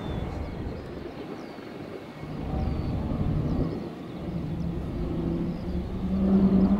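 Turboprop engines of two Pilatus PC-21 trainers flying overhead in formation: a steady drone with a low engine tone that rises slightly in pitch and grows louder toward the end as the pair approaches.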